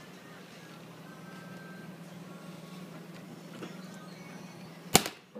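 Cup-noodle vending machine running with a steady low hum as it serves hot water into the cup, with one sharp clack about five seconds in.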